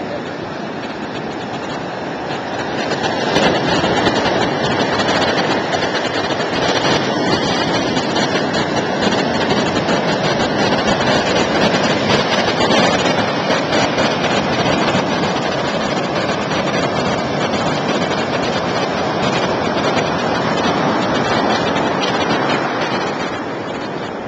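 Rough storm surf breaking on the rocks of a seawall, mixed with wind buffeting the microphone: a steady rush of noise that swells about three seconds in and eases near the end.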